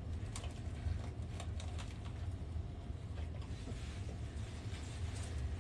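Faint crackling and crunching of a crusty bolillo roll as a person bites into a chorizo torta and chews, in short scattered clicks over a steady low hum.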